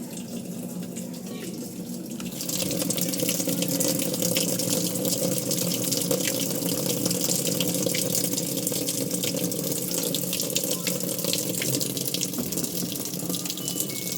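Water running in a steady rush, which grows clearly louder about two seconds in and then holds.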